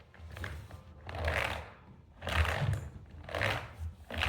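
Scrubbing strokes over a computer keyboard during cleaning, four rustling swells about a second apart.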